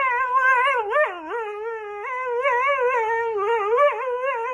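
Dog howling in long notes that waver up and down in pitch, with brief breaks between notes.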